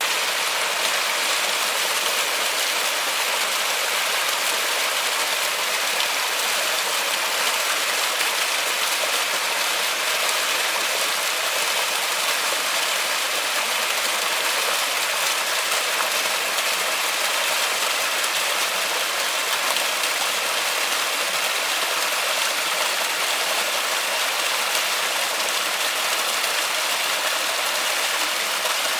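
Waterfall in a forest, water falling and splashing in a steady, unbroken rush with a bright hiss.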